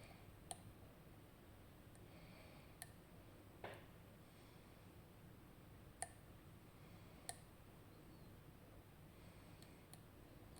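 Faint, sharp clicks of a lock pick working inside a RUKO Garant high-security pin-tumbler cylinder. There are about six isolated clicks a second or two apart, with a brief scrape about a third of the way through, against a near-silent background.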